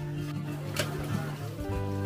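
Background music with held notes, changing chord near the end.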